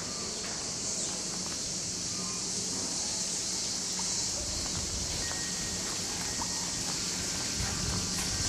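Cicadas singing in a dense, steady chorus: one unbroken high-pitched shrill buzz.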